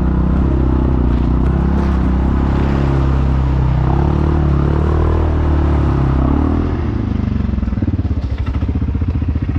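ATV engine running under throttle, then easing off about two-thirds of the way in and settling to a pulsing idle as the machine slows to a stop.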